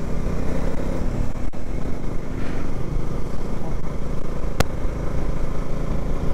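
Bajaj Dominar 400 motorcycle's single-cylinder engine running steadily while riding along a road, under a steady rush of wind noise. A single sharp click comes about two-thirds of the way through.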